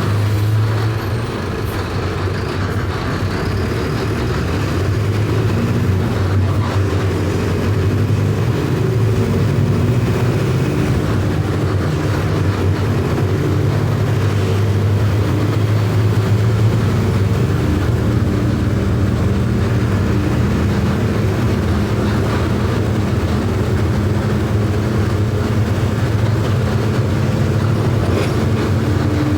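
Mercedes-Benz OF 1519 bus's four-cylinder electronically managed diesel engine running steadily under way. Its note shifts slightly in pitch a few times.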